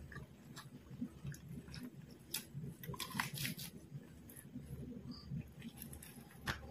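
Close-miked chewing and lip smacks of a person eating fried quail, with her fingers pulling at the meat. There are scattered wet clicks throughout, thickest about three seconds in.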